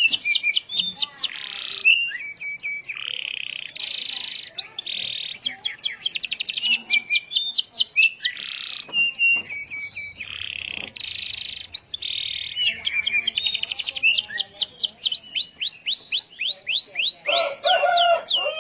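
Domestic canary singing a long, fast song: rapid series of high down-slurred notes alternating with buzzy rolling trills, with only brief breaks.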